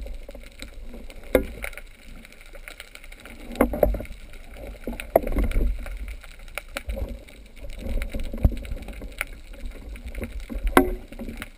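Underwater sound muffled by a GoPro's waterproof housing: a low rumble of moving water with scattered sharp clicks and knocks.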